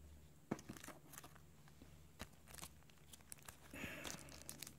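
Faint handling of packaging: light clicks and rustles of paper cards and a clear plastic sleeve being picked up, with a short crinkle of the plastic near the end.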